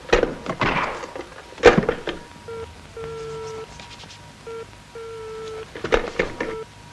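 A desk telephone set down on a table with a few knocks and handling clicks. Then a steady telephone dial tone from the handset, starting about two and a half seconds in and coming in a short-long pattern that repeats about every two seconds, the Italian dial-tone cadence.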